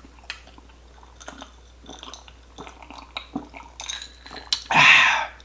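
A person eating shrimp and rice at close range: scattered small chewing clicks and light clinks of utensils on dishes. Near the end comes one louder, breathy burst of noise.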